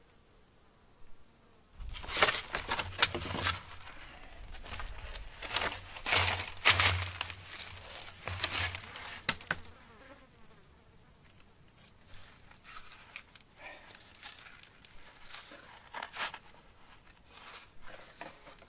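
Dry crackling and rustling of wooden poles and plant-fibre cord being handled and wound into a lashing. It starts about two seconds in and is densest over the next several seconds, with a low rumble under it, then thins to scattered crackles.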